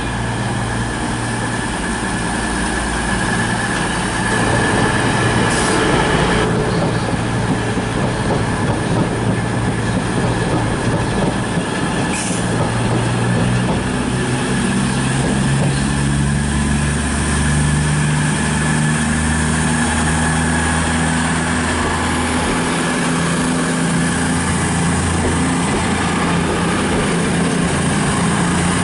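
CrossCountry Voyager diesel multiple unit moving slowly past along the platform, the underfloor diesel engines under each car droning as the carriages go by, with a thin high squeal over the first several seconds.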